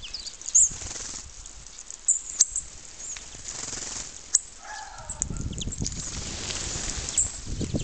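Small birds giving short, high chirps and calls, with wing flutters among them. A low rumbling noise comes in about two-thirds of the way through.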